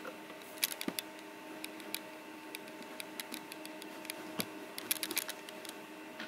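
Cardboard model-kit box being handled as its lid is worked open: scattered sharp clicks and light scrapes, with a cluster about a second in and another near the five-second mark. A steady faint hum runs underneath.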